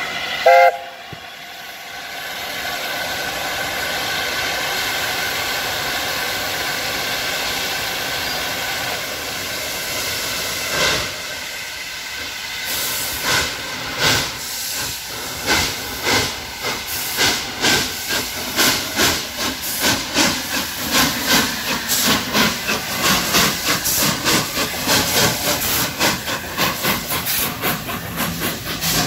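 Steam locomotive starting away: a short whistle blast, then a steady hiss of steam. About halfway through, exhaust beats begin, slow at first and quickening as it gathers speed.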